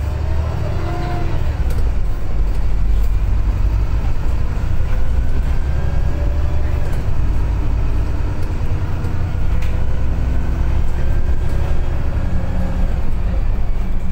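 Diesel engine of a VDL SB200 single-deck bus with a Wright Pulsar 2 body driving along, heard from inside the passenger saloon. A steady low drone builds over the first couple of seconds, with faint whines that drift up and down in pitch.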